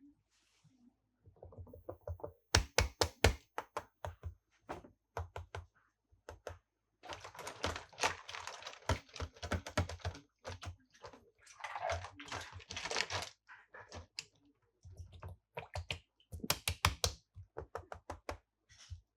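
Hard plastic toys and playset parts being handled: rapid clicks, taps and knocks in irregular runs, with two longer stretches of rustling or scraping midway.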